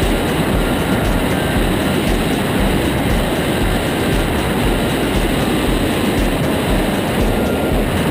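Steady, loud wind rush over a camera microphone mounted outside on the wing of an Aeroprakt A22 Foxbat light aircraft in cruise, mixed with the plane's engine and propeller running, with low buffeting thumps from the airflow.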